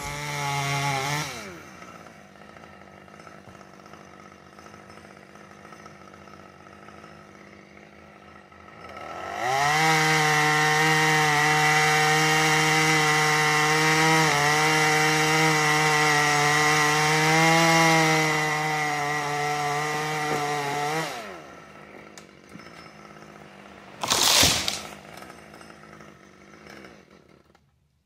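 Chainsaw revving briefly, idling, then held at full throttle for about eleven seconds as it cuts through the trunk to take the top out of a tall conifer, dropping back to idle. About three seconds later there is one loud thud as the cut top hits the ground.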